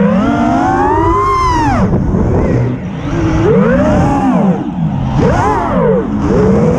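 Brushless motors of an FPV freestyle quadcopter whining as it flies, the pitch sweeping up and down steeply and repeatedly with the throttle punches and chops, with wind buffeting the onboard camera's microphone.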